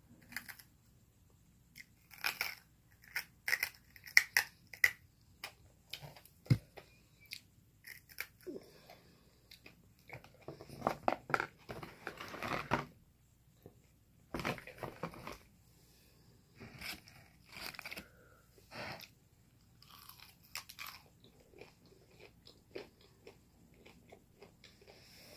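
Close-up chewing, biting and crunching of crispy fast food, coming in irregular bursts with short pauses between mouthfuls.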